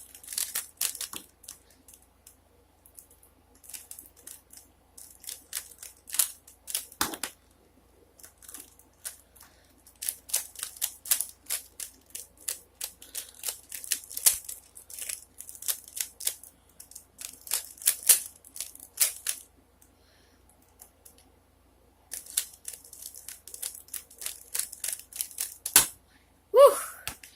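Plastic 3x3x3 Rubik's cube being turned by hand: rapid runs of clicking and rattling as the layers are twisted, with pauses of a second or two about eight and twenty seconds in. Two sharper knocks stand out, one about seven seconds in and one near the end.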